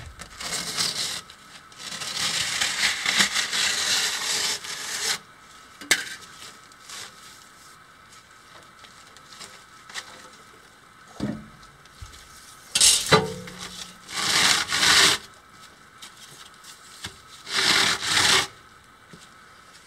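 Rough, gritty rasping of porous concrete slabs being cut and trimmed to size, in three spells of one to three seconds each. Between the spells come a few sharp knocks and a thump as the slabs are handled.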